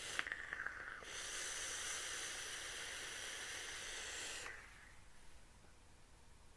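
Freak Show rebuildable dripping atomizer firing its 0.3-ohm coil at 60 watts on an X Cube mod during a long draw. A few crackles in the first second give way to a steady hiss of e-liquid vaporizing and air pulled through the drip tip, which cuts off about four and a half seconds in.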